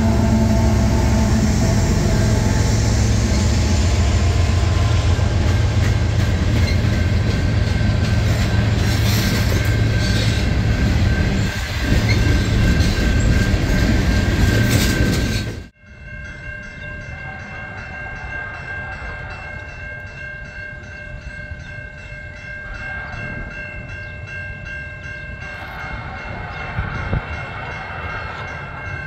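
CN diesel freight locomotives passing close by with a loud rumble, followed by a long string of tank cars rolling by with steady wheel-on-rail noise. About two-thirds of the way in the sound cuts abruptly to a much quieter, steady rumble of a distant approaching train.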